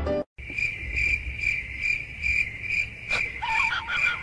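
A cricket chirping steadily: a high, pulsing trill at about three pulses a second. About three seconds in, a few short high squeaks come over it.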